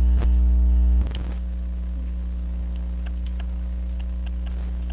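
Electrical mains hum picked up by the microphone, which needs the holder's hand as a ground when the camcorder runs on AC power. The hum is loud at first and drops noticeably after a click about a second in. Faint small metallic clicks follow, from a screwdriver working at the screws of the clock movement.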